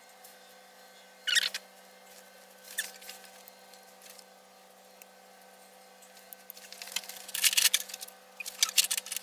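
Metal engine parts clicking as the oil pump pickup tube and screen are fitted, with a couple of short clinks early on; from about seven seconds in, a wrench works a fitting on the oil pump with rapid metallic clicking and rattling.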